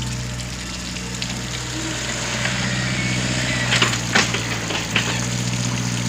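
Heavy diesel equipment, a backhoe and a sand truck, with its engine running steadily. A few sharp knocks and rattles come in the second half, as sand and stones are dug and loaded.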